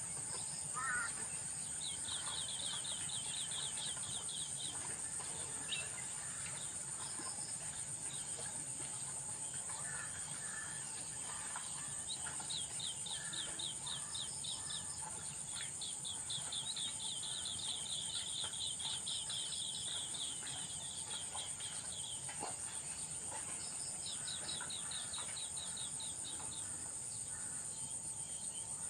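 Steady high-pitched insect drone, like cicadas or crickets, with several runs of rapid repeated chirping notes, each a few seconds long.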